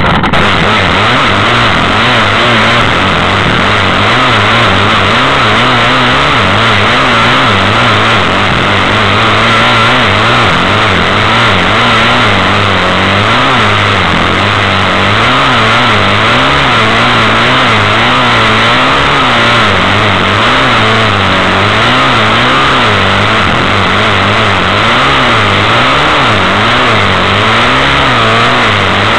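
Loud engine of a Yamaha off-road vehicle running under load, its revs rising and falling over and over as the throttle is worked through sandy terrain.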